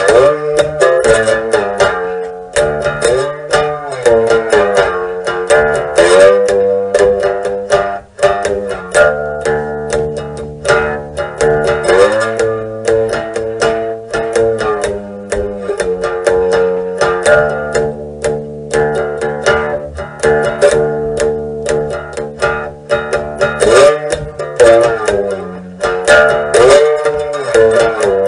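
Instrumental music played on plucked strings: a fast-picked tune with notes sliding in pitch, at a steady lively pace.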